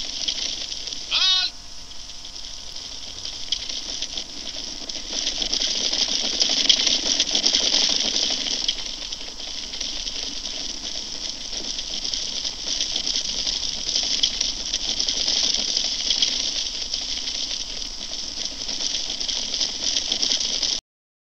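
A horse whinnies briefly about a second in, then the steady clatter and shuffle of a mounted troop on the move, many horses together, under the hiss of an old film soundtrack.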